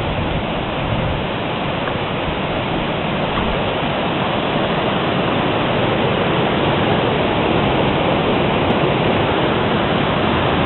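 River water rushing over a weir: a loud, steady roar that grows slightly louder toward the end.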